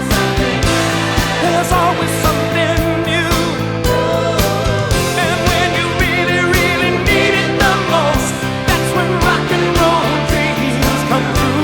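Full-band rock music in a passage without sung lyrics: drums keep a steady beat under sustained chords while a lead line wavers and slides above.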